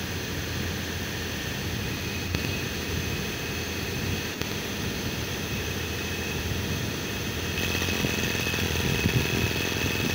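O.S. FS-26S-CX four-stroke glow model engine running steadily on methanol and castor oil, getting a little louder about seven and a half seconds in. It is running with a forgotten tissue-paper dust plug still in its inlet, which the owner says choked it just enough to let it start without priming.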